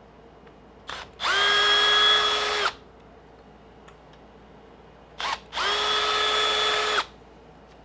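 Milwaukee M12 Fuel cordless screwdriver running twice, about a second and a half each time with a short blip of the trigger just before, backing out two 2 mm hex screws. Its motor gives a steady whine with no hammering.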